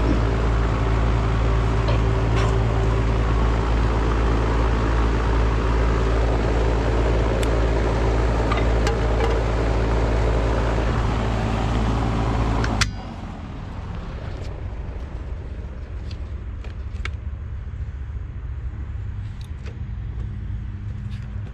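Outdoor air-conditioner condensing unit running with a steady electrical motor hum, on a unit whose compressor is not running because of a failed run capacitor. About 13 seconds in the hum cuts off abruptly with a sharp click, leaving only a few light clicks of handling.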